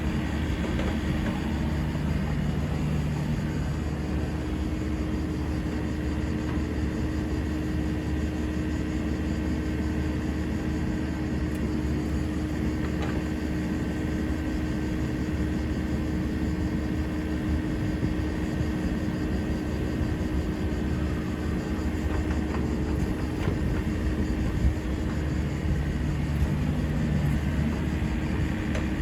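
Diesel engine of a Komatsu PC55MR-3 mini excavator running steadily with an even hum.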